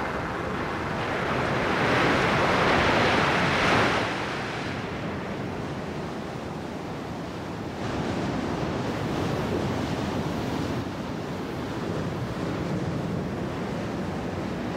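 Ocean surf breaking on a beach. One wave swells up and crashes in the first few seconds, then a steadier wash of surf goes on with some wind.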